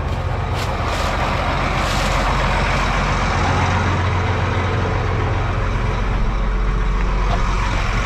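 Farm tractor's diesel engine running steadily, with a deep, even hum. A few short crackles sound in the first two seconds.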